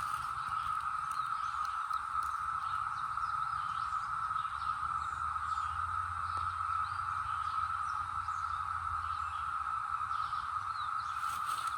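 Chorus of Brood X periodical cicadas: a steady, unbroken drone.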